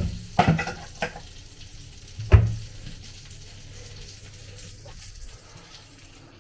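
A few knocks of dishes and a bowl being handled on the kitchen counter, the loudest with a dull thud about two and a half seconds in, over the faint steady sizzle of minced-beef patties frying in a cast-iron pan.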